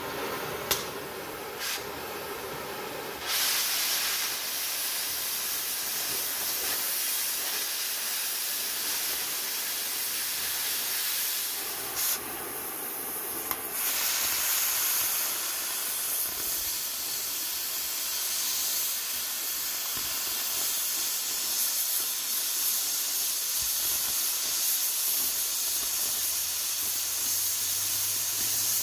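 Oxy-fuel cutting torch cutting steel plate: a couple of sharp pops in the first two seconds, the popping of a torch with a leaking O-ring, then the steady hiss of the cutting jet from about three seconds in. The hiss breaks off briefly about twelve seconds in and then carries on.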